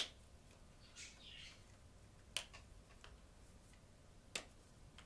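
Three sharp clicks from a felt-tip marker and its cap being handled, with a brief rustle about a second in.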